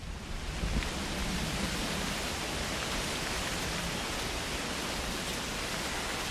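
Steady rushing of wind, an even hiss with a low rumble, that fades in over the first second and then holds level.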